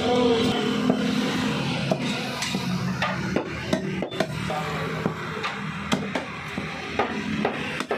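Meat cleaver chopping pieces of buffalo meat on a wooden butcher's block: a run of sharp, irregular knocks, about one or two a second.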